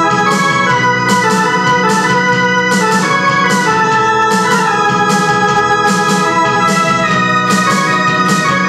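Portable electronic keyboard played live, a forró melody in held, organ-like chords over a steady beat that ticks about twice a second.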